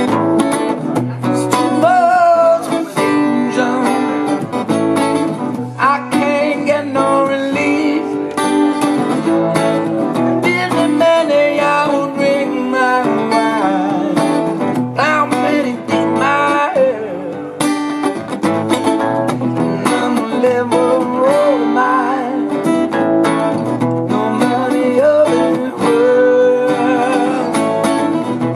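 Two acoustic guitars strummed and picked together in a live duo performance, with a man singing over them.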